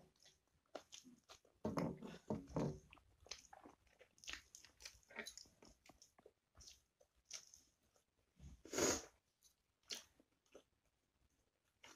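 Close-up mouth sounds of a person eating rice and chicken curry by hand: chewing and lip smacks in short, irregular clicks, with fingers working the grains off a brass plate. A longer, louder smack or slurp comes about nine seconds in.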